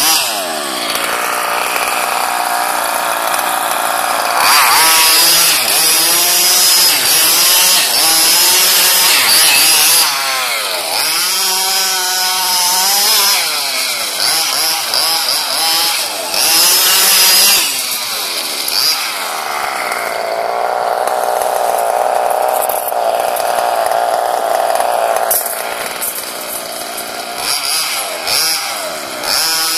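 HPI Baja RC car's 28.5cc two-stroke petrol engine revving up and down as the car is driven, its pitch rising and falling with the throttle, settling to a steadier note for a few seconds after the middle.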